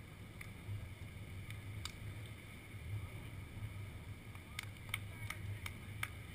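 Steady low rumble of open beach ambience. About four and a half seconds in, a run of short sharp clicks starts, about three a second.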